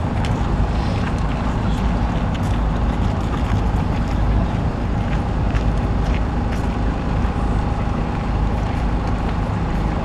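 Steady, low rumbling outdoor background noise with a faint, steady high hum over it and a few faint clicks.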